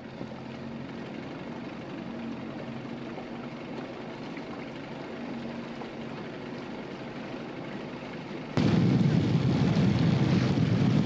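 Boat engine running steadily, a low hum heard from on board. About eight and a half seconds in, the sound jumps suddenly to a much louder rush of wind and water over the motor.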